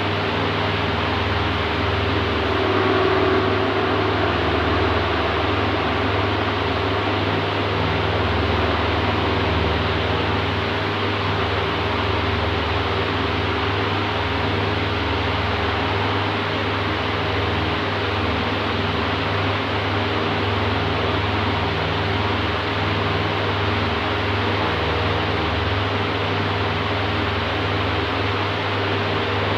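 Oscillating electric fan running steadily: an even rush of moving air over a low motor hum and a faint steady tone, swelling slightly about three seconds in.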